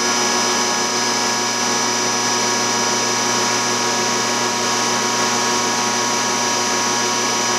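Diesel injection pump test stand running steadily, its high-pressure fuel supply pushing fuel through a six-cylinder Bosch inline pump for spill-port (phase) timing: a constant machine hum with a high whine over it.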